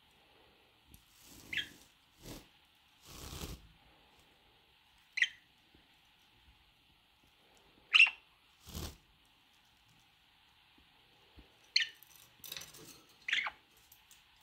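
Pet budgerigar giving short, sharp chirps that drop in pitch, about five in all, the loudest about halfway through, with a few brief rustling noises in between.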